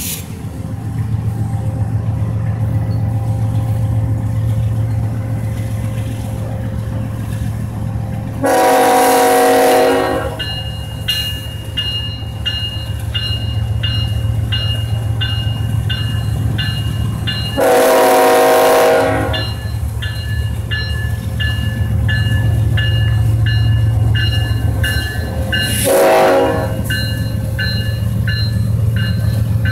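Union Pacific diesel locomotives running under steady low engine rumble as the train pulls slowly past. The horn sounds two long blasts and then a short one, the opening of a grade-crossing signal. From about ten seconds in, a crossing bell rings steadily underneath.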